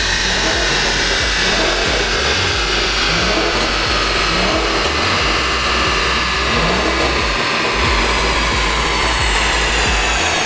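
Cadillac CTS-V's supercharged 6.2-litre V8 running on a chassis dynamometer, loud and steady, with a high whine that slowly falls in pitch.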